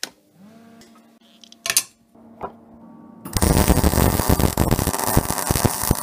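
Lincoln SP-170T MIG welder switched on with a click, then humming steadily. A little over three seconds in, the wire-feed arc strikes and crackles loudly and unevenly for about three seconds while the steel frame tubing is tack welded.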